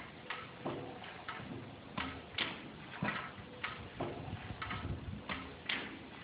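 A 10 HP IHC Mogul single-cylinder gas engine running slowly, giving a steady run of mechanical clicks and knocks, about two a second, some heavier than others.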